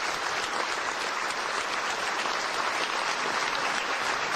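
Large audience giving a standing ovation: sustained, dense applause at a steady level.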